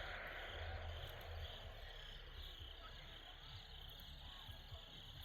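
Faint, steady chorus of crickets chirping.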